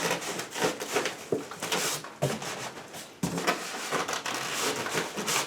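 Cardboard box and styrofoam packing rubbing and scraping as a PC case in its foam end caps is worked out of a tight box, with two sharp knocks about two and three seconds in.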